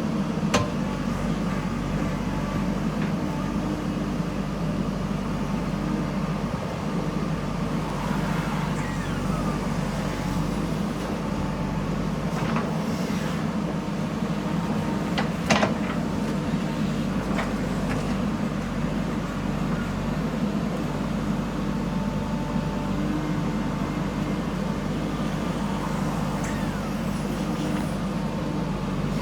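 Diesel engine of a JCB 3DX backhoe loader running steadily as it works soil, with a few light knocks and one sharper knock about fifteen seconds in.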